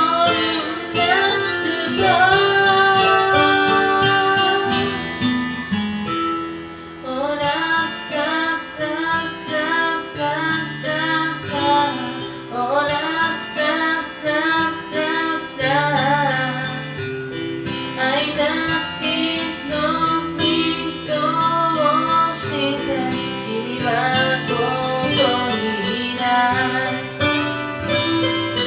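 A voice singing a pop ballad melody over strummed acoustic guitar, with a brief lull about six seconds in.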